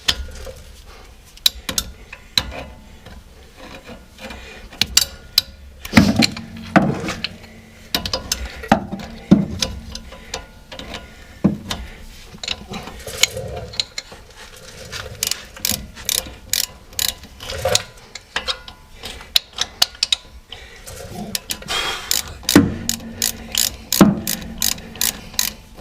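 Socket ratchet wrench clicking in repeated strokes while undoing a brake caliper bolt, with faster runs of clicks near the end. A few louder metal knocks come in between.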